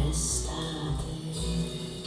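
Instrumental passage of a slow sung ballad between vocal lines, with bass notes, plucked guitar-like tones and a brief bright hiss near the start, played back through Audio Nirvana Super 8 full-range speakers driven by a Tripath amplifier.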